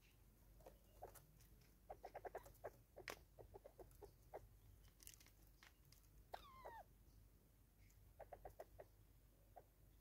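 Natal spurfowl giving soft clucking notes in quick runs of several at a time, faint, with scattered sharp clicks and a single falling call about six seconds in.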